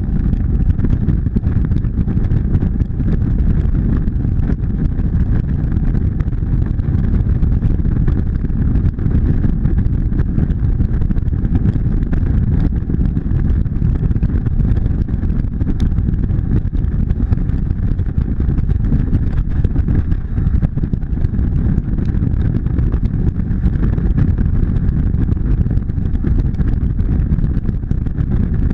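Motorcycle running at steady highway speed, its engine noise mixed with a steady low rush of wind on the microphone.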